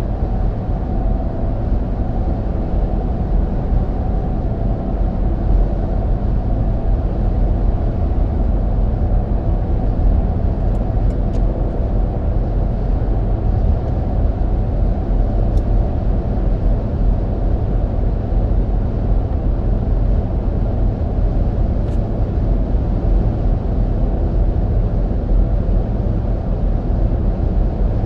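Steady in-cabin road noise of a Toyota Sequoia rolling on Mickey Thompson Baja Boss all-terrain tires: an even low drone and hum that holds level while cruising.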